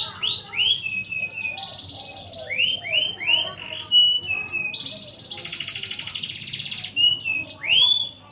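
Domestic canary singing: quick rising sweeping notes and short steady whistles, broken by fast rattling trills, one long trill in the middle and a final rising note near the end.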